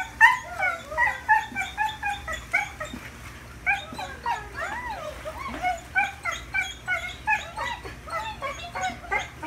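A dog whining in a string of short, high-pitched yelps, about two or three a second, with a brief pause about three seconds in.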